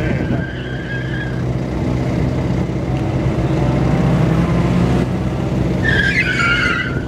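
Subaru Impreza WRX wagon's turbocharged flat-four engine running hard as the car corners tightly. Its tyres squeal briefly at the start, then give a louder, wavering squeal about six seconds in.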